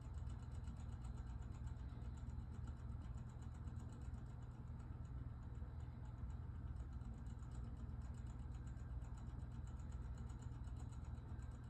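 Battery wall clock's movement ticking rapidly and evenly, many ticks a second, as it drives its hands forward to set itself. A low steady hum sits underneath.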